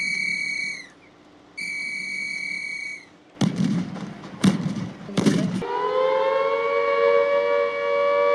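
Playback of recorded WWII air raid signals. There are two long, steady, high-pitched blasts, then a few sharp bangs about halfway through. After that an air raid siren starts up, rises slightly and holds a steady wail.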